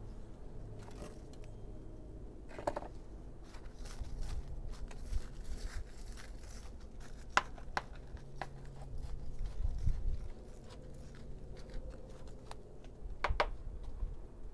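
Garden hand tool scraping and loosening the top layer of potting soil and dry leaves in a plastic bucket: irregular scratching and crunching, with a few sharper clicks.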